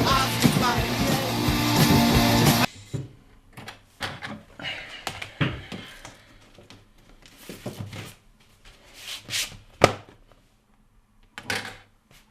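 Loud music with a full band sound that cuts off abruptly about two and a half seconds in, followed by scattered soft knocks and rustles and a sharp click near the end, as of things being handled.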